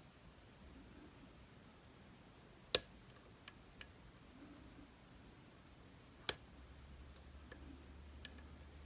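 Picking tools clicking against the pins and keyway of a DOM RS8 profile cylinder: two sharp clicks about three and a half seconds apart, each followed by a few fainter ticks.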